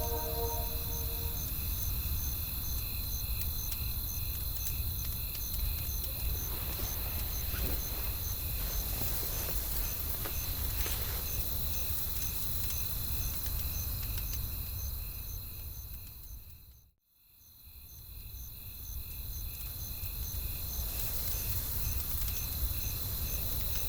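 Night-time nature ambience: crickets chirping in an even rhythm, about two pulses a second, over a steady low rumble of wind and fire with a few faint crackles. It all fades out briefly about two-thirds of the way through and fades back in.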